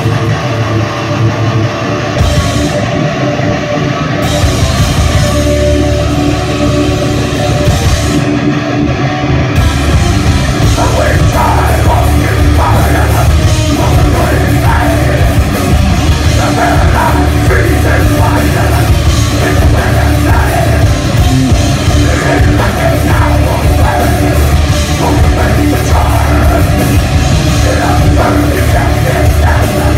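A live hardcore punk band plays loud through the club PA: distorted electric guitar, bass guitar and a drum kit pounding away. The high end fills out about ten seconds in.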